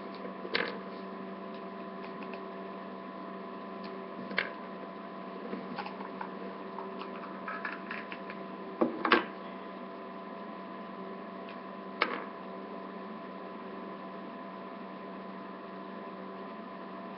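Small snap-together plastic figure pieces clicking as they are pulled apart and handled, a few sharp clicks with the loudest, a close pair, about nine seconds in. A steady electrical hum runs underneath.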